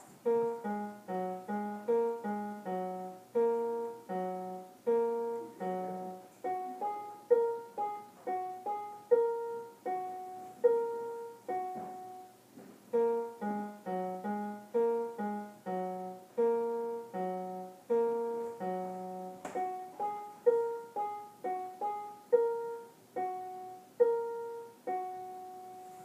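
Portable electronic keyboard playing a simple tune in a piano voice at a steady, unhurried pace: a melody over lower left-hand notes, each note struck and left to fade.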